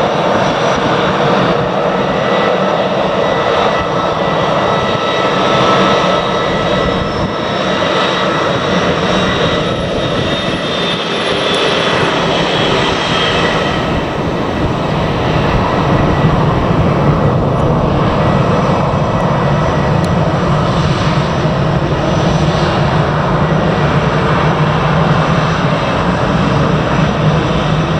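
Jet airliner engines running loud and steady, an easyJet Airbus A319 departing. A high whine drops slowly in pitch about a third of the way in.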